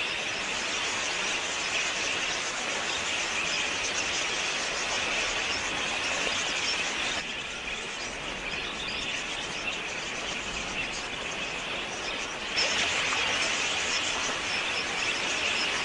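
A large flock of wild budgerigars chattering and chirping together in a dense, continuous din of high calls as they come in to drink. It eases a little about seven seconds in and swells again about twelve and a half seconds in.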